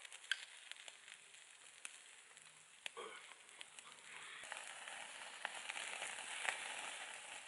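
Wood campfire crackling and hissing, with scattered sharp pops, growing louder about halfway through.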